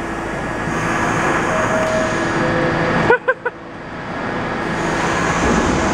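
New York City subway train noise with a steady hum, growing steadily louder. It drops out abruptly about three seconds in, with a brief snatch of a voice, then builds again.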